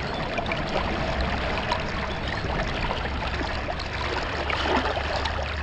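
Running water: a steady rushing flow with many small splashes and trickles.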